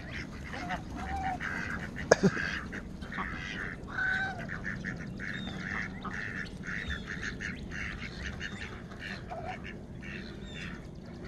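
Backyard ducks quacking among chickens and geese: a steady run of short calls, with a sharp click about two seconds in.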